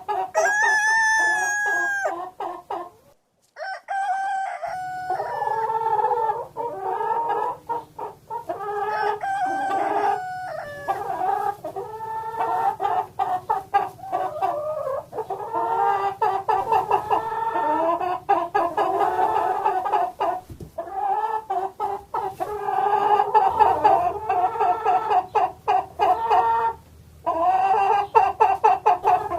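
Chickens clucking, many calls overlapping, with a longer rooster crow about a second in and brief pauses in the calling.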